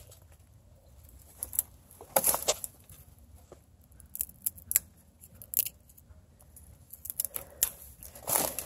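Footsteps crunching through dry leaf litter and twigs, with brush crackling against the walker, in irregular bursts separated by short quiet gaps.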